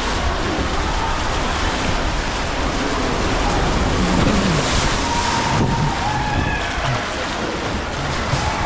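Water rushing down a water-park slide channel, with wind buffeting the microphone as the rider moves along it.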